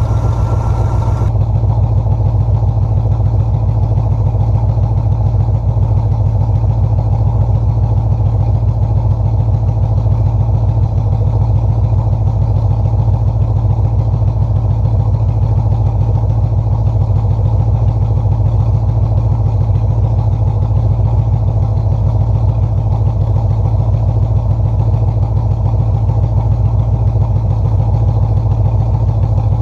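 Carbureted small-block Chevy V8 in a 1985 C10 pickup, running at a steady idle with a fast, even firing pulse.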